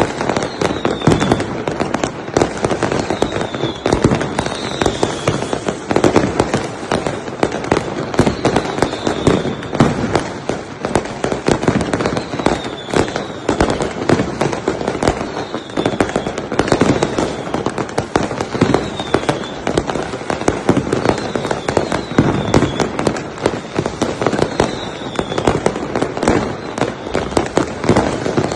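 Fireworks going off continuously: a dense stream of bangs and crackling pops, with short falling whistles now and then.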